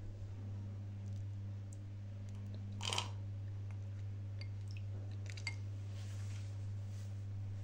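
A short slurp through a drinking straw about three seconds in, over a steady low hum, with a few faint clicks a little later.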